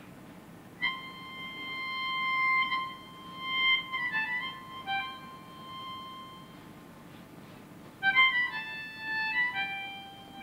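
A solo instrument plays a slow, high melody in single notes: a long held note about a second in, a short run of notes, a pause, then a second phrase near the end.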